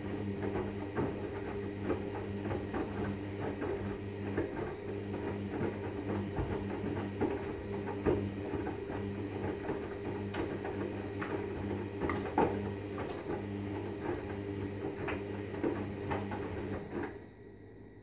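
Hoover Vision Dynamic washing machine's drum tumbling the wet load during a main wash, with a steady motor hum and many small splashes and knocks from the laundry. The tumble stops about a second before the end, the usual pause before the drum turns the other way.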